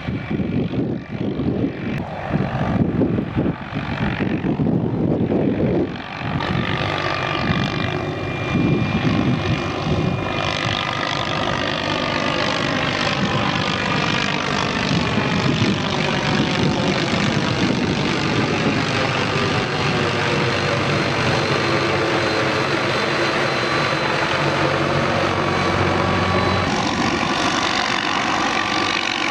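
Utility helicopter flying close by: rotor beating in the first few seconds, then a steady engine whine whose pitch slowly falls and rises again as it moves about.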